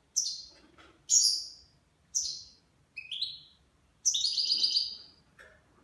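Caged European goldfinch singing: four short, high, bright phrases about a second apart, then a longer trilled phrase from about four seconds in.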